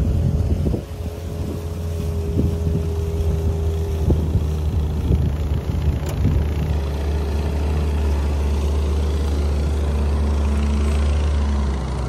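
Outboard motor of a small open boat running steadily at cruising speed, a low drone with wind and water hiss over it and a few light knocks.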